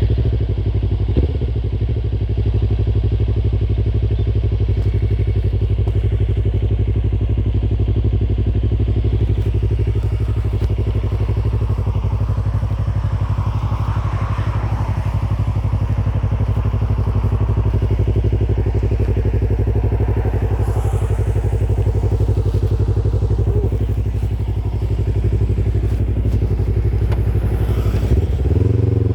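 Yamaha MT-25's 249 cc parallel-twin engine idling steadily, with a short throttle blip that raises and drops the revs near the end.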